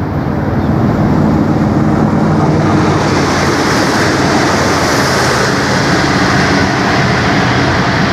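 Two-car V/Line Sprinter diesel railcar set passing close at speed: a steady diesel engine drone under a rush of wheel and rail noise that is loudest about halfway through as the cars go by.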